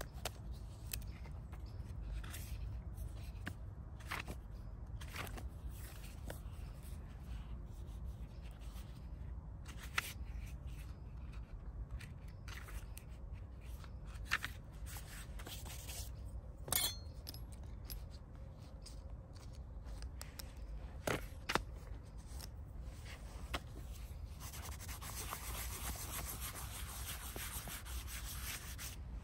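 Small hardback paper notebook being handled: its pages turned, with scattered light taps and clicks, then a steady rubbing on paper for the last few seconds as a hand works across the open page. A low steady rumble of wind runs underneath.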